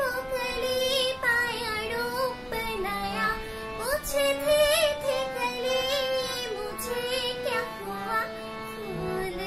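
A young woman singing a Hindi film song solo, her single melody line sliding and wavering through ornamented, held notes with brief breaths between phrases.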